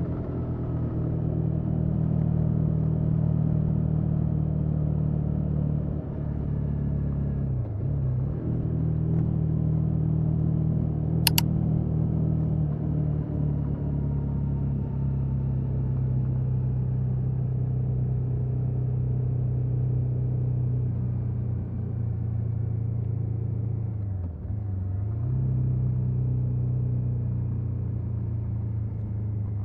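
KTM 1290 Super Adventure S's LC8 V-twin with its stock exhaust, running at steady revs. The revs dip briefly and recover twice. A single sharp click comes about a third of the way in.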